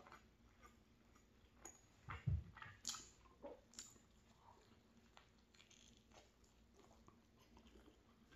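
Quiet, close mouth sounds of a person biting into a soft flatbread wrap of scrambled egg, cheddar and potato, then chewing. There is a low thump about two seconds in, followed by a few sharp clicks over the next two seconds.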